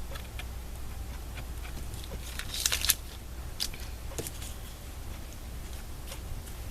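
Craft papers being handled on a table: scattered rustles and light clicks, with a louder burst of crinkling about two and a half seconds in, over a steady low room hum.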